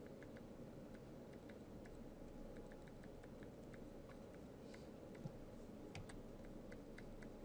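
Faint, irregular light clicks from computer input devices, about two or three a second, as strokes are painted in Photoshop, over a low steady room hum.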